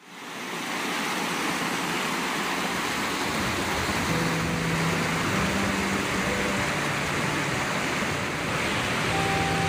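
Creek water rushing over rocks in small cascades, a steady full rush that fades up at the start. Faint held musical notes come in about halfway through.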